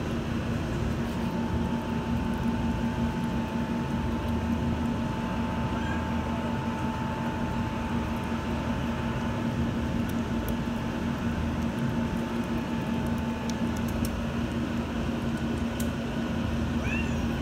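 Steady low machine hum with a thin, steady high whine above it that stops a few seconds before the end; a brief high squeak comes just before the end.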